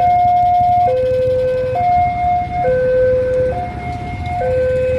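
A railway level crossing's warning siren sounding a two-tone hi-lo call. It alternates between a higher and a lower tone, each held for just under a second.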